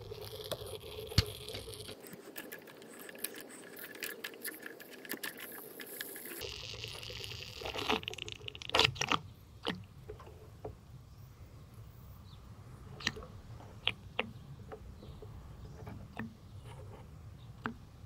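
Geyser anode rod being unscrewed with a 28 mm socket wrench and then by hand: irregular metal clicks, knocks and scrapes, busiest a little before the middle, with a short hiss just before that burst.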